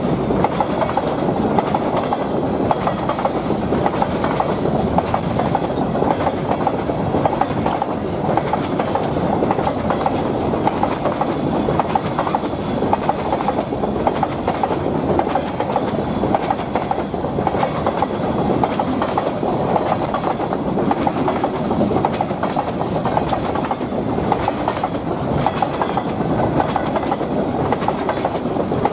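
Loaded freight train of covered hopper cars rolling past at close range: steady rumble of steel wheels on rail with continuous clicking and rattling of wheels and car bodies.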